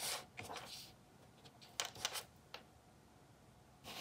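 Faint, short scratchy taps and rustles of an acrylic brush marker's tip dabbing petal strokes onto black cardboard, in small clusters at the start, around two seconds in, and near the end.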